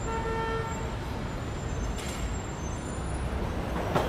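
A motor vehicle running with a steady low rumble. A brief tone sounds during the first second, and a short hiss comes about two seconds in.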